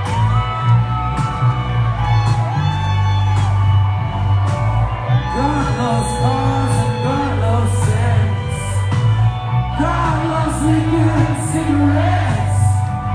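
Live rock band playing a song, with heavy sustained bass and ringing electric guitar chords; a male lead vocal comes in about five seconds in.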